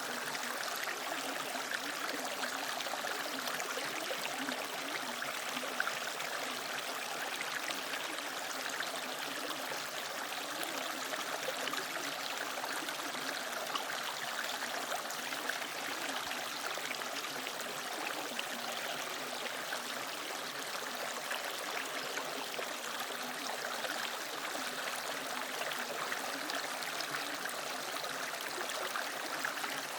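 Mountain valley stream flowing over rocks: a steady rush of water with small trickles and gurgles.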